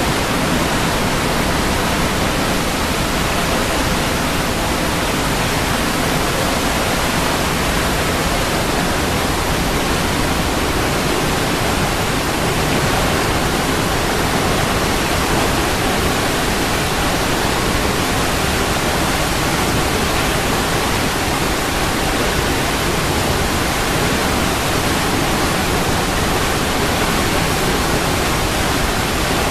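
Waterfall: water falling and rushing in a steady, loud, even hiss that spans low to high pitches, unchanging throughout.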